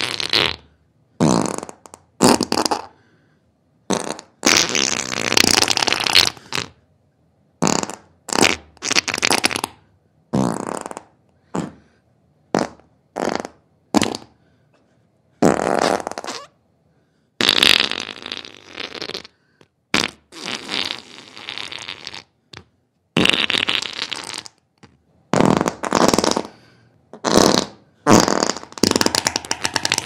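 Diarrhoea sound effects: a string of about twenty separate fart sounds, some short sputters and some lasting up to two seconds, with brief silences between them.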